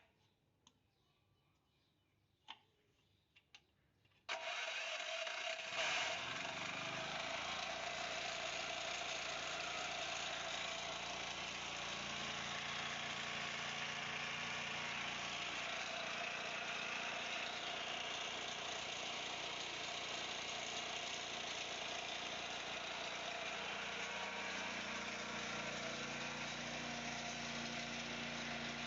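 A few faint clicks, then a Chinese-made Honda-style portable generator engine starts abruptly about four seconds in and settles into steady running. Its exhaust has just been repaired to reduce the noise.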